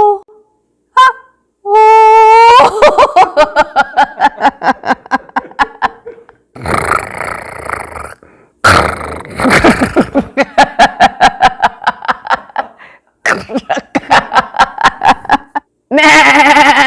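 A woman's voice making high, pulsing vocal calls in long runs of about six pulses a second, ending in a held, wavering call.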